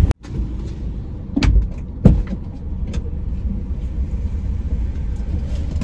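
Car's engine idling with a steady low rumble while its tailgate stands open, with sharp knocks about one and a half and two seconds in and a lighter one near three seconds, as bags are loaded into the back.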